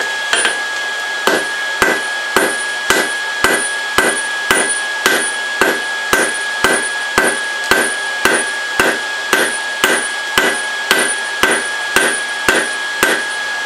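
Hand hammer striking a red-hot 3/8-inch steel bar on an anvil, flattening it, at a steady pace of about two blows a second. Each blow sets the anvil ringing with a high metallic ring.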